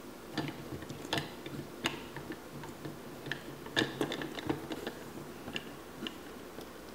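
Irregular light plastic clicks and taps from a Play-Doh Diggin' Rigs toy truck being handled: its hinged plastic lid mould is opened, loaded with modelling clay, shut and pressed down.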